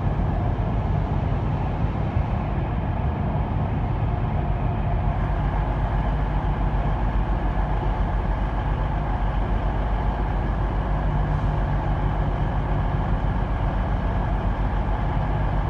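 Underfloor diesel engines of a CrossCountry Voyager train idling at the platform: a steady, even, low engine hum that does not change.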